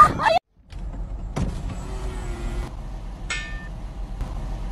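Steady low rumble of road traffic, with a short high squeak about three seconds in.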